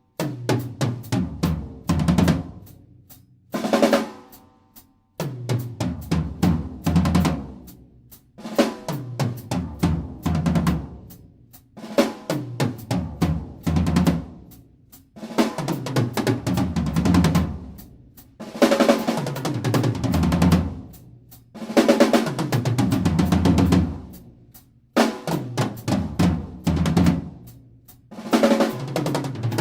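Drum kit played solo: busy fills across snare and cymbals that run down the toms to the bass drum, repeating as phrases about every three seconds.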